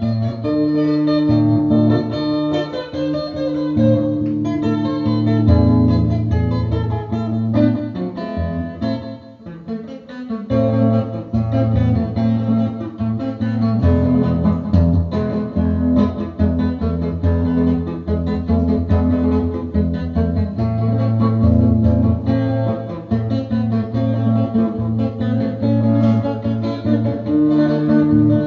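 Background music played on guitar, with chords changing every few seconds.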